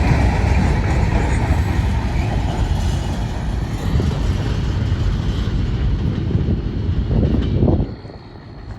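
Freight train cars rolling past on the rails, a steady loud noise of wheels and cars that drops away sharply near the end.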